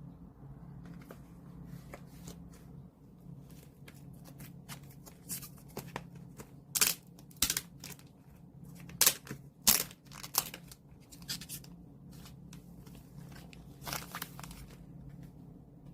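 Paper and plastic album packaging being handled and torn open: a string of short rustling and tearing sounds, loudest in the middle with another burst near the end, over a steady low hum.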